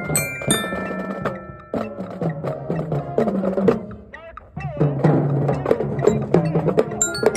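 Marching band playing: a mallet keyboard struck with sticks close by, its notes ringing over brass and marching drums. The music thins out briefly about four seconds in, then comes back in full.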